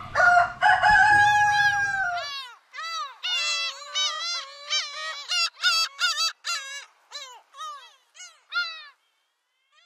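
A rooster crows in one long call that falls slightly at the end. About two seconds in, the farm background cuts off and a run of short, quick chirps follows, thinning out and stopping near the end.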